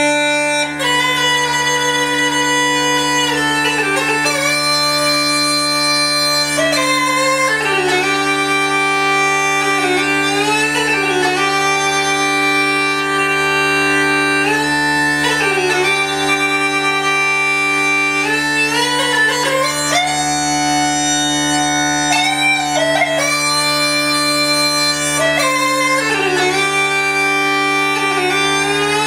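Bagpipe music: steady drones held under a chanter melody that moves from note to note without a break.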